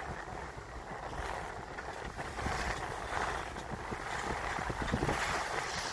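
Wind buffeting the microphone over the hiss of water rushing along a sailboat's hull under sail, with bow spray splashing up about halfway through.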